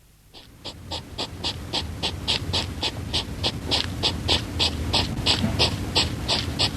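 An animal breathing in quick, even rhythmic pants, about three or four a second, starting faintly and growing louder over the first second or two.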